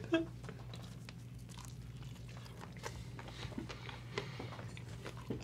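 Faint biting and chewing of a chicken sandwich, soft scattered crunches and mouth sounds over a low steady hum.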